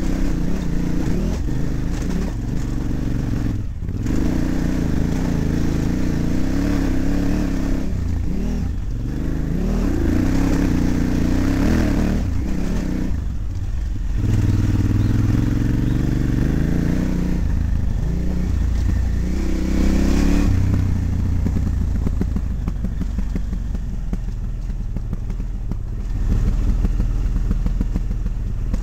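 KTM 950's V-twin engine running under a rider on a rough dirt trail, its revs rising and falling with the throttle and briefly dropping away several times, with some clattering from the bike over the rocks.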